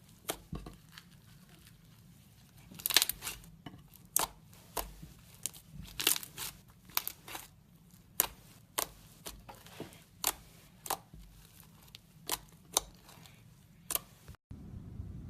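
Crunchy slime being squeezed and pressed, giving sharp crackling pops at irregular intervals, about one every half second, with a denser crackle about three seconds in.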